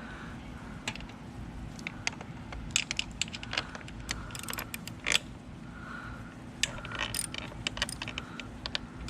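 Scattered light clicks and clinks, irregular and sharp, from hands handling wiring and parts on a dirt bike.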